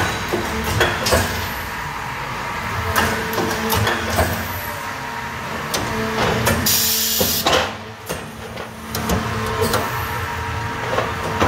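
APS RPS-504 punch line at work: a steady machine hum with sharp metal knocks every second or so from the punch strokes, and a hiss of air lasting about a second around seven seconds in.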